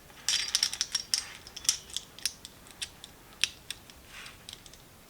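Small metal 1/4-inch sockets clicking and scraping as they are pulled off and pushed back onto their socket holder. A quick cluster of clicks comes in the first second, then scattered single clicks.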